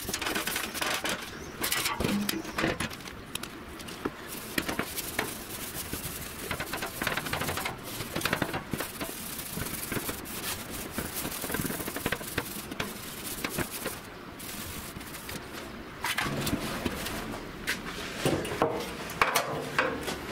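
A rag scrubbing over a primed sheet-steel car trunk floor panel, wiping it down with solvent: an uneven rubbing with scattered short clicks and knocks against the metal.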